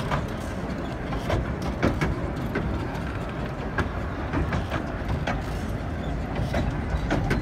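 Narrow-gauge railway coaches rolling slowly along a platform: a steady rumble with irregular clicks and clunks from the wheels and running gear, several a second apart.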